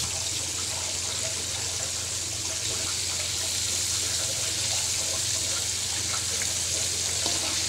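Flour-coated chicken pieces deep-frying in hot oil in a wok: a steady sizzle.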